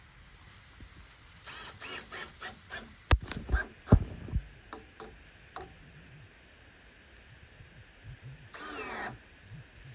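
Cordless drill driving a fastener into wood, run in a few short bursts, then three heavy knocks, a few sharp clicks, and one more short run of the drill near the end.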